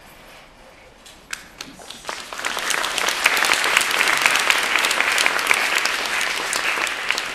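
Theatre audience applauding: a few scattered claps about a second in, quickly building into full, dense applause that begins to fade near the end.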